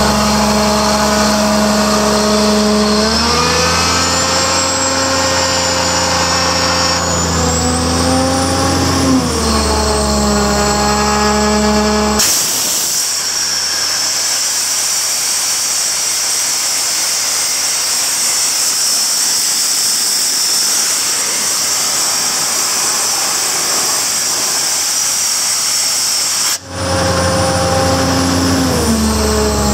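Sullair 900H portable air compressor running and building pressure. Its engine drone steps up in speed a few seconds in and wavers around nine seconds. From about twelve seconds a steady loud hiss of rushing air covers the engine, then cuts off near the end as the engine tone comes back.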